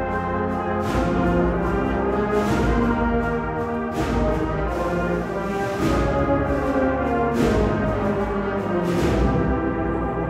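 Agrupación musical, a brass-and-percussion band of cornets, trumpets, trombones and low brass with drums, playing sustained brass chords. Crashing percussion strikes land about every one and a half seconds.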